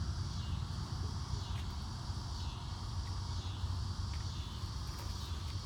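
Quiet outdoor background with no gunshot: a low rumble, a steady high hiss that pulses faintly, and a few faint clicks.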